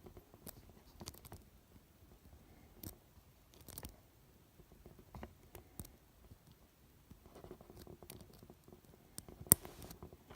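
Wafers of a smart lock cylinder clicking against the sidebar as they are pushed up and down with the change tool under sidebar pressure: a scatter of faint clicks, with one clearer, louder click near the end.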